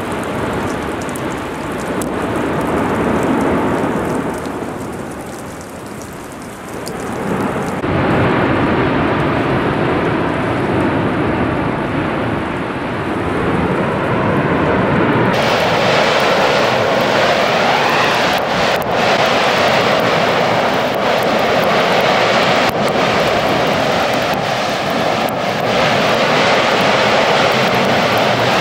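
Steady jet-like roar of a lava fountain erupting from a vent of the Cumbre Vieja volcano. It changes character abruptly about 8 and 15 seconds in, becoming louder and hissier in the last part, with a few sharp cracks near the end.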